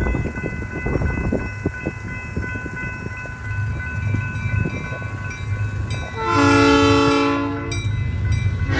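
Freight locomotive on the rails, a low rumble with scattered knocks and clatter. About six seconds in its air horn sounds one loud chord of several notes for about a second and a half. The horn starts again right at the end.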